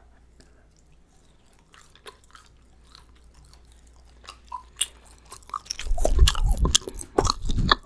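Eating Five Guys Cajun fries: chewing with mouth clicks, faint at first and much louder over the last two seconds.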